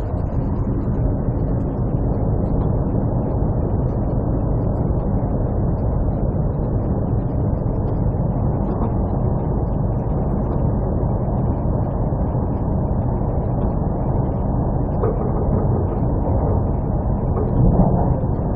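Passenger train running at speed, heard from inside the carriage: a steady rumble.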